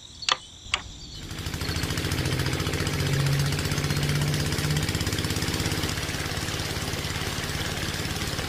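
Two clicks of a miniature switch, then a small electric motor starts about a second in and runs steadily with a fast buzz, driving a belt-driven toy water pump.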